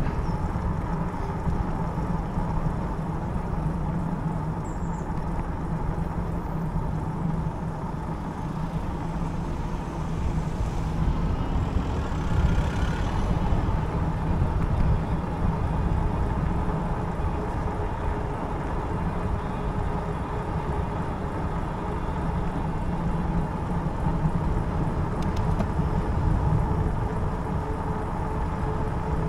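Wind rumbling on the microphone and steady tyre road noise from a fat-tyred Himiway Zebra e-bike rolling along a tarmac road, with a low hum underneath and a brief swell about twelve seconds in.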